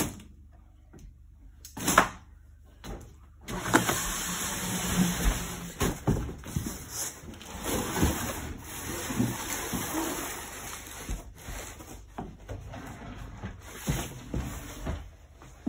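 Cardboard shipping box being handled and pulled apart around a flat-pack kitchen base cabinet: two sharp knocks near the start, then a long stretch of cardboard rustling and small knocks. Near the end a cabinet drawer slides open with a knock.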